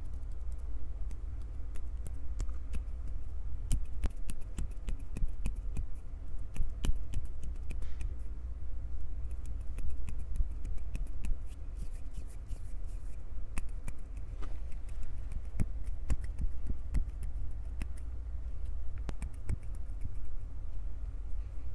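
Hands gripping, squeezing and rubbing a Tascam recorder's microphones at close range: dense crackles and taps over a low handling rumble. There is a brief rubbing hiss about twelve seconds in.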